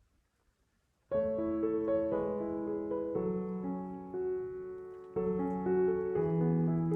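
Background piano music, entering suddenly about a second in after near silence, with slow chords and melody notes changing every half second or so.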